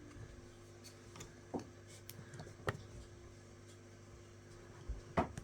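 Faint, scattered ticks and soft rustles of hand latch hooking, a latch hook tool working yarn through rug canvas, over a low steady hum.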